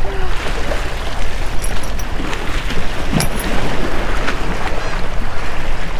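Wind rushing over the microphone, mixed with small waves splashing and washing against granite jetty rocks.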